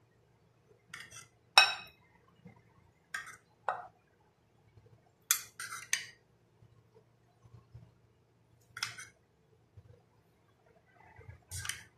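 Metal spoon clinking against a glass bowl as yogurt is spooned on: about nine short, irregular clinks, the loudest about a second and a half in.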